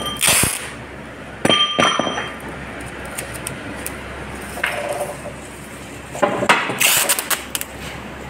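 Metal clanks and clinks with a ringing tail: the steel shaft through a large paper reel knocking against the steel reel stand and its shaft clamps as the reel is set in place. Sharp strikes come about half a second in, twice around one and a half to two seconds, once near five seconds, and in a cluster near seven seconds, over a steady low hum.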